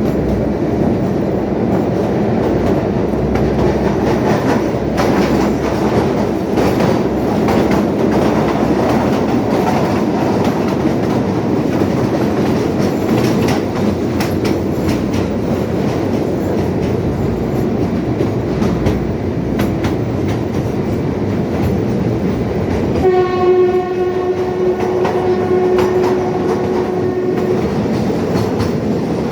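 Narrow-gauge toy train on the Kalka–Shimla line running, with a steady rumble and rattle of wheels and coach. Near the end its horn sounds one long, steady blast of about four seconds.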